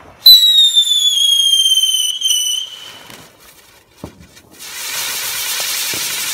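Fireworks: a loud firework whistle lasting a little over two seconds, its pitch sinking slowly. A short pop comes about four seconds in. From about half a second later, a ground fountain gives out a steady hissing spray of sparks.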